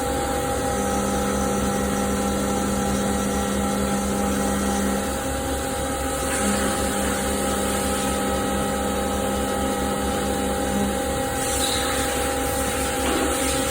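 CNC machining centre running a milling job on steel: a steady machine hum with several constant tones. One lower tone drops out briefly about five seconds in and again near the end.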